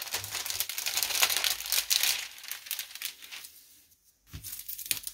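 Clear plastic protective film on an adhesive diamond-painting canvas crinkling as hands press and smooth it flat, pushing out air bubbles. Dense crinkling for about three seconds, then fading away, with one short rustle near the end.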